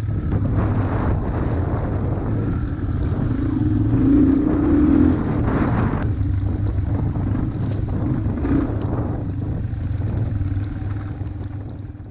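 Yamaha AG200 trail bike's single-cylinder four-stroke engine running at low speed while ridden over rough ground. It gets louder for about a second around four seconds in, then fades out near the end.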